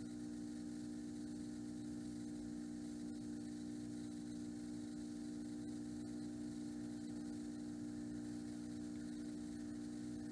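Steady low electrical hum, a mains-type drone with an even level and no other events.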